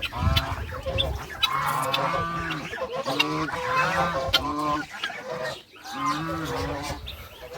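Domestic geese honking: a long run of short repeated honks about every half second, broken by a brief pause about five and a half seconds in.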